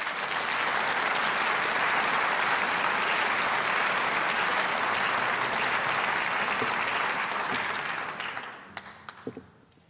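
Audience applauding in a large hall, rising quickly at the start, holding steady, then dying away near the end.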